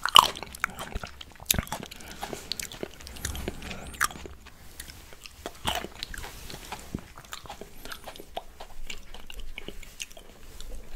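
Close-miked chewing of fresh berries and grapes: wet crunches, smacks and clicks, the loudest bite just after the start, then a run of smaller scattered clicks.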